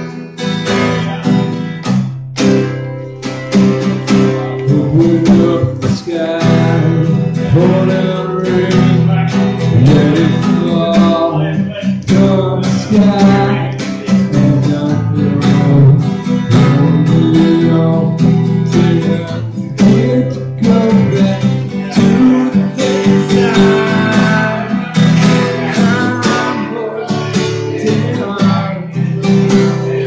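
Acoustic guitar strummed steadily in a song, with a voice singing over it.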